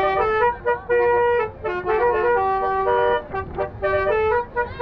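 Basuri tour bus's telolet horn, a multi-trumpet musical air horn, playing a tune: several tones at once stepping quickly from note to note, with short breaks about one and a half and three and a half seconds in.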